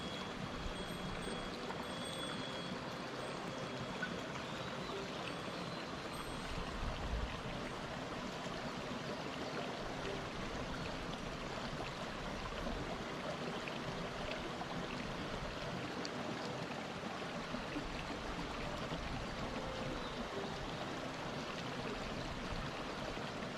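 Mountain stream water rushing steadily over rocks, an even continuous flow.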